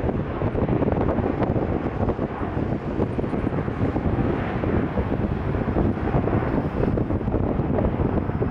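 Steady engine noise of a jet airliner, with wind on the microphone.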